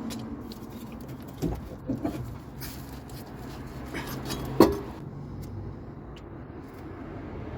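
A few sharp knocks over a steady low hum; the loudest knock comes about four and a half seconds in.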